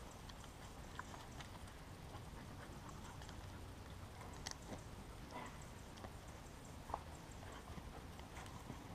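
Faint scattered footsteps and rustling from a pack of dogs milling about on dry dirt and forest litter, over a low steady rumble.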